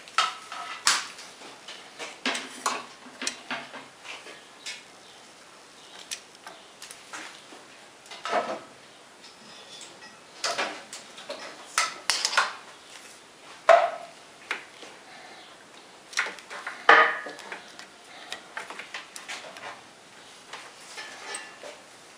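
Scattered, irregular metallic clinks and knocks of metal tools and parts being handled on a workbench, with no steady motor hum.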